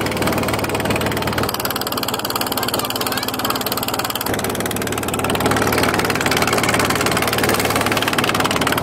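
Motorboat engine running steadily under way, with water rushing past the hull.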